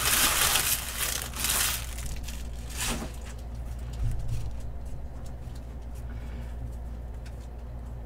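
Foil trading-card pack wrapper being torn open and crinkled, in three short bursts over the first three seconds, then quieter rustling as the cards are handled.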